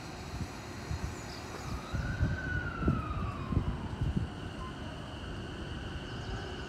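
JR East E233 series electric train starting to pull away from the platform: its traction inverter gives a whining tone that rises and falls back, then a steady high whine. Low irregular thumps come with it, loudest in the middle.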